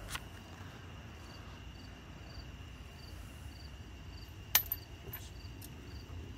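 Crickets chirping steadily, about three chirps a second. About four and a half seconds in comes a single sharp metallic clink as loose hardware is handled, with a few lighter clicks after it.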